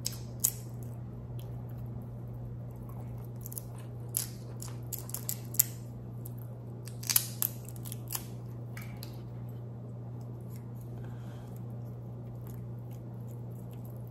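Small clicks and cracks of cooked crab leg shell being broken apart by hand as the meat is picked out, scattered over the first nine seconds or so. A steady low hum sits under them throughout.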